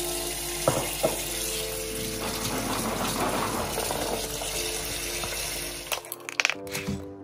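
Water running from a kitchen tap, a steady rush that cuts off about six seconds in, followed by a few light knocks.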